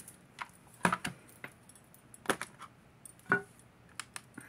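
Silver jewelry and a plastic digital pocket scale being handled on a table: about seven light, sharp clicks and metallic clinks, spaced irregularly.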